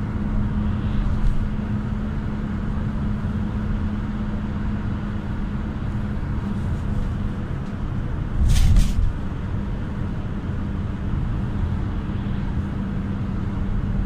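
Cabin noise inside a moving GAZ A64R45 minibus with an Evotech A275 four-cylinder engine: a steady engine hum over road rumble. A short, loud burst of noise comes about eight and a half seconds in.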